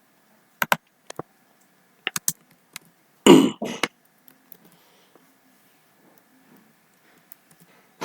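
A few short, sharp clicks, then a brief throaty vocal sound with falling pitch about three seconds in, over a faint steady hum.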